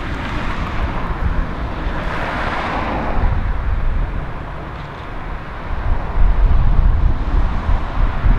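Road traffic noise: a vehicle passes by, its noise swelling and fading about two to three seconds in, then a heavier low rumble near the end.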